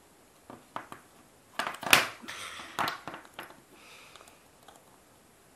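Small clicks and taps from handling a clear plastic layered case while a small screwdriver works at its screws, with a louder cluster of knocks about two seconds in.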